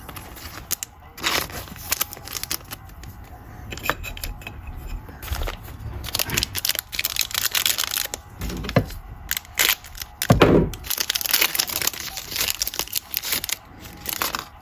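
Plastic-foil trading card pack wrappers being handled and torn open, with irregular crinkling and crackling.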